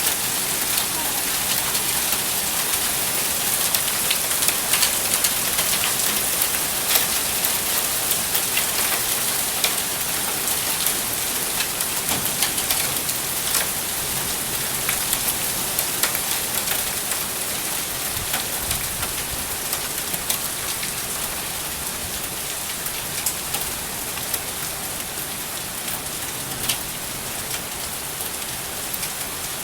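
Hail and heavy rain coming down: a dense steady hiss pocked with many sharp ticks of hailstones striking. It eases gradually over the last several seconds.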